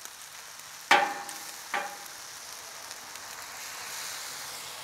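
Fried rice and vegetables sizzling on a Camp Chef flat-top gas griddle, a steady hiss. A metal spatula clanks against the steel griddle about a second in, the loudest sound, and again more softly under a second later.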